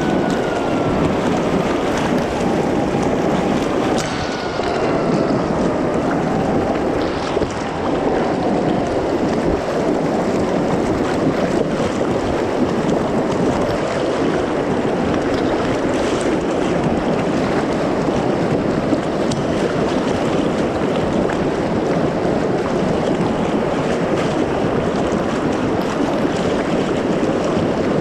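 Fast-flowing flood water of a river rushing and churning in standing waves, with continuous splashing right at the microphone, which sits at water level.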